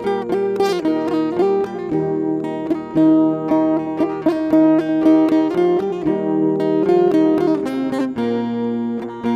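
Background music: a plucked string instrument, guitar-like, playing a quick run of notes over sustained chords.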